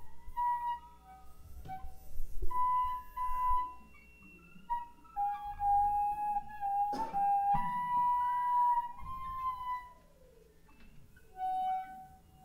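Ultrasonic acoustic feedback from small hand-built instruments, shifted down into hearing range: whistle-like pure tones that hold and slide between pitches, with curving sweeps that fall away and rise again. A sharp click comes about seven seconds in, and a tone returns near the end after a short lull.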